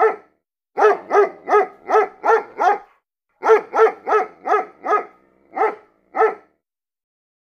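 A dog barking, fairly high-pitched: a single bark, then a quick run of six, a run of five, and two more spaced barks.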